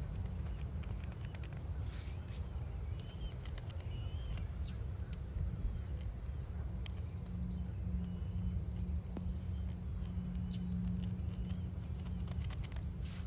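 A steady low rumble, with birds chirping and giving short rapid trills over it. Light scattered clicks and scrapes come from a gloved hand scrubbing the face of a small headstone.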